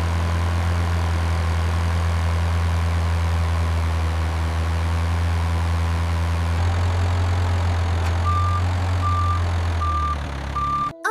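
Repaired cartoon tractor's engine running steadily at idle, a low even hum. About 8 seconds in come four evenly spaced high beeps, like a reversing alarm, and the engine sound drops away near the end.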